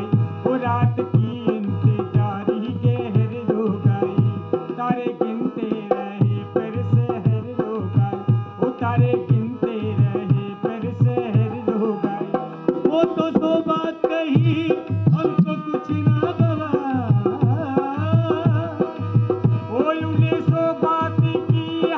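Indian folk dance music: a hand drum played in a fast, steady rhythm under a winding melody line. The drumming thins briefly about two-thirds of the way through, then picks up again.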